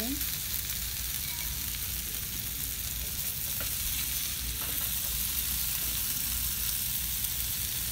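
Glazed carrot slices sizzling in a hot nonstick skillet, the burner just turned off, as a slotted spatula stirs and scoops them, with a couple of light taps of the spatula against the pan.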